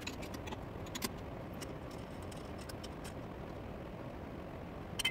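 A steady low hum with a few light metallic clicks and taps from hands working the aluminium engine bearing housing in a metal lathe's chuck.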